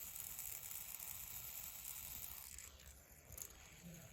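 Soft whirring hiss of a metal fidget spinner's bearing spinning, fading away about two and a half seconds in, with a faint click near the end.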